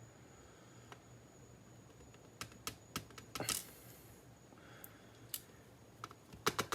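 Scattered sharp little clicks and taps of small metal lock parts being handled while a Yale Superior dimple euro cylinder is taken apart, with a short scrape about three and a half seconds in and a quick cluster of clicks near the end.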